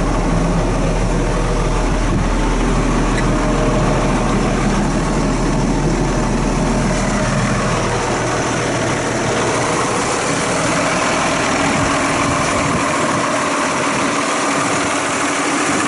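Case Maxxum MX170 tractor's Cummins diesel engine idling steadily. It is heard first from inside the cab; about halfway through, the deep low hum fades and the sound turns brighter as it is heard from outside the tractor.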